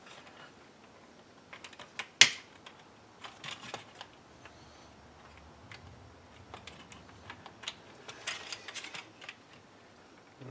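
Scattered small plastic clicks and taps from handling and prying apart the pieces of a 2006 Nissan Titan's HVAC control panel, with one louder click about two seconds in and bursts of clicking later on.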